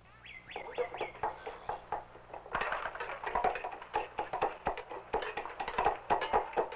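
Chickens clucking in short high calls. From about two and a half seconds in, a busy, irregular clatter of knocks and taps begins, like pots and dishes being handled at a kitchen table.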